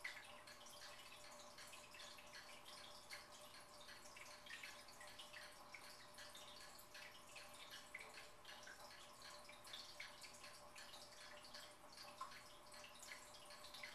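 Faint fish tank water: a constant, irregular patter of small drips and bubbles from the tank's filter or aerator, over a faint steady hum.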